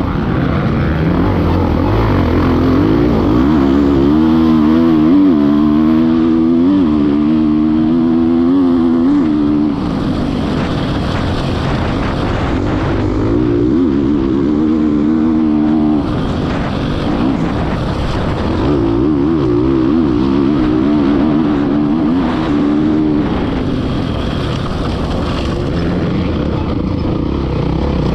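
Kawasaki KX450X's single-cylinder four-stroke engine racing under hard throttle, its pitch rising and falling repeatedly with throttle and gear changes, with short let-offs about ten and sixteen seconds in. Heard close up from a camera mounted on the bike.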